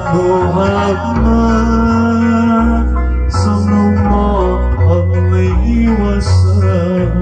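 Background music: a song with singing over plucked strings and a bass line that moves in even, regular steps.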